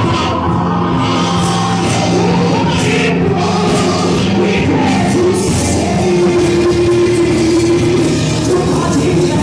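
Loud rock-style music with singing, voices and instruments holding long sustained notes, typical of a church band playing during a service.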